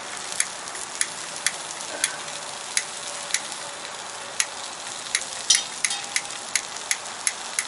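Diced onions sizzling in a frying pan over a campfire, with sharp crackling pops every half second or so.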